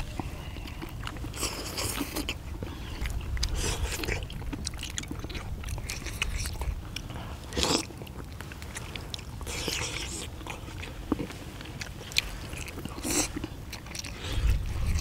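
Close-miked eating sounds: several people biting and chewing saucy braised chicken and beef large intestines, in irregular short bursts.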